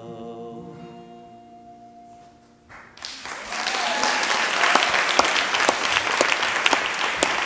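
The song's final held notes fade out, with one long sung note held to about the three-second mark. Then an audience starts applauding, loud steady clapping that is the loudest part.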